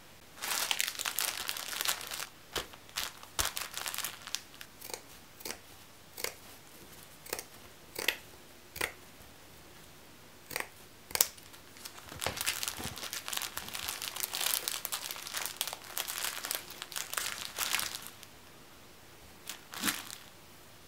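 Hands handling crinkly plastic packaging in two long stretches of crinkling, with scattered sharp snips and clicks in between as scissors cut through burlap.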